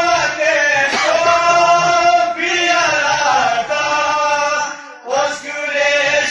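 Male voice singing a devotional kalam in long held, chant-like notes, with a brief pause about five seconds in before the singing resumes.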